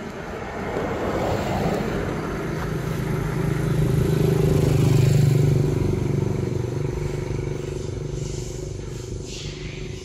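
A motor vehicle passing by. Its steady engine hum swells to a peak about halfway through, then fades.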